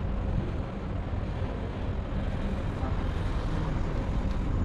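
Steady low rumble of outdoor urban background noise, like road traffic.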